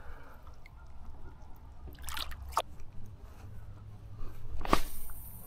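A few short splashes and knocks of water, the loudest near the end, over a low rumble.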